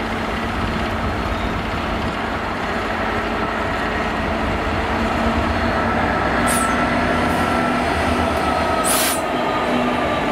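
Class 66 diesel locomotive passing slowly on its own, its two-stroke V12 engine droning steadily over wheel-on-rail noise and growing slightly louder as it draws alongside. Two short hisses come about six and a half and nine seconds in.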